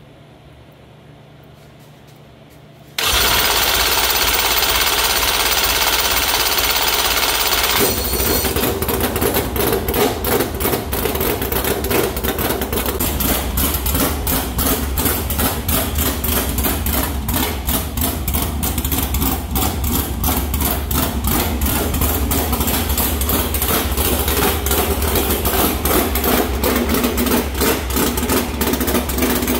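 Freshly installed Moss Racing 360 Ford sprint-car engine being started for the first time: about three seconds in, an external starter spins it with a steady whir for about five seconds. The engine catches about eight seconds in and runs on with a rapid, even firing beat, idling near 1200 rpm.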